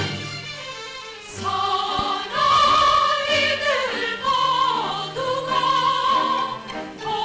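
Stage-musical number: orchestra playing, and from about a second and a half in, singers holding long notes over the accompaniment.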